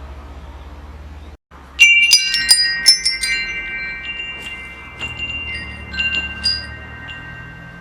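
Metal wind chimes struck in a quick cluster about two seconds in, then a few scattered strikes, their tones ringing on. A low steady background rumble underlies it, with a momentary dropout just before the first strikes.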